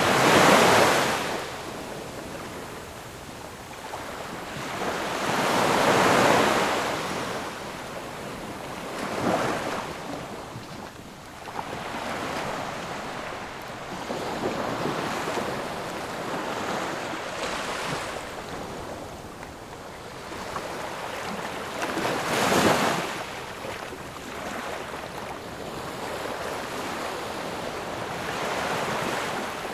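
Ocean surf: waves break and wash in and out in slow surges every few seconds. The loudest swells come right at the start, at about 6 seconds, and at about 22 seconds.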